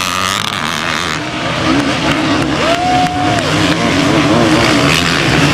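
Motocross bike engines running and revving on the track, their pitch rising and falling as the riders work the throttle, with one clear rev up and back down about three seconds in.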